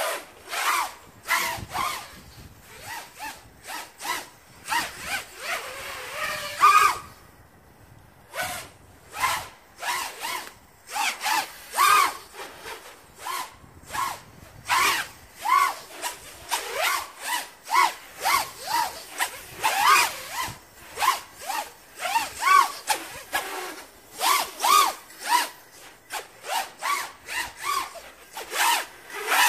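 FPV drone's motors and 5-inch three-blade propellers buzzing in quick throttle bursts, the pitch rising and falling over and over, with a short lull about seven seconds in.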